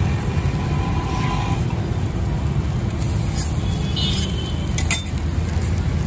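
Steady low rumble of road traffic and street bustle, with a few short metal clinks and scrapes from the stall's utensils around the middle.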